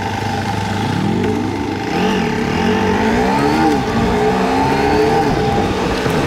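KTM Duke 250 motorcycle's single-cylinder engine accelerating through the gears. The pitch rises about a second in and drops back at each upshift, twice, then climbs again.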